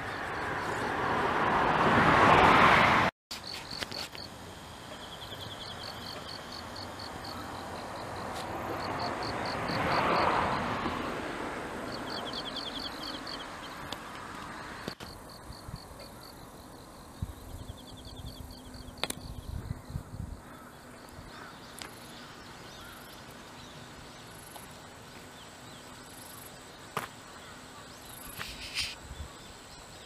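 Field insects chirping in rapid pulsed trills, repeating in short bouts. A broad whoosh swells and fades twice, once at the start and again about ten seconds in, like a vehicle going by.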